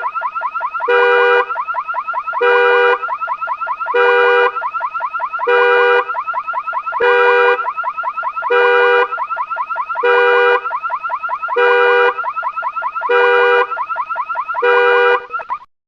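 A 2023 Nissan's car alarm going off in panic mode: a fast electronic warble with a loud horn honk about every second and a half. It cuts off abruptly near the end.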